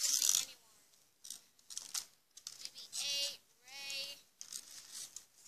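A child's voice making two high, wavering play noises about three and four seconds in, after a short, loud burst of rustling at the start, with light plastic crinkling in between.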